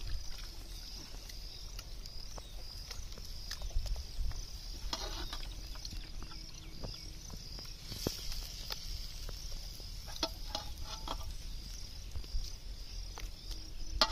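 Insects chirring in a steady, high, pulsing drone over a low rumble, with scattered small clicks and pops from the open wood fire and the simmering pot.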